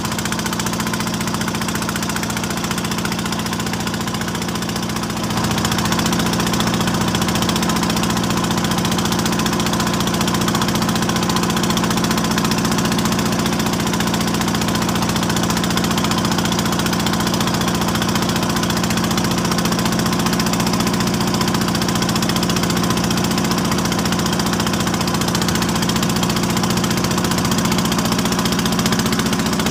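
Engine of a wooden outrigger fishing boat running steadily under way, over the rush of water and wind; a little louder from about five seconds in.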